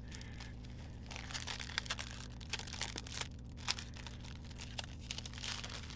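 Clear plastic sleeve crinkling as a sticker sheet is slid out of it: scattered faint crackles over a low steady hum.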